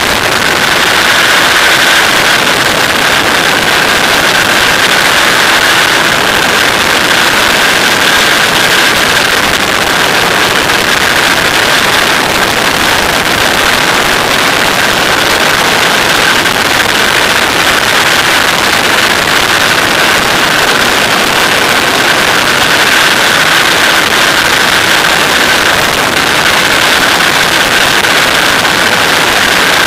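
Flexwing microlight trike in cruising flight: its engine and propeller run at a steady, unchanging note under loud rushing wind.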